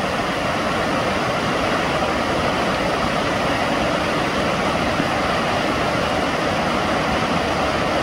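Waterfall pouring, a steady, even rush of falling water.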